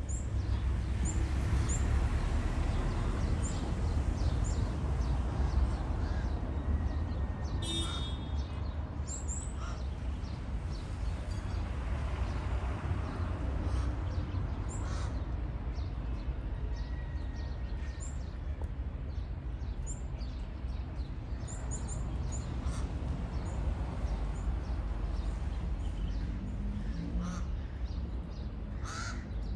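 Crows cawing now and then among short, high bird chirps, over a steady low rumble.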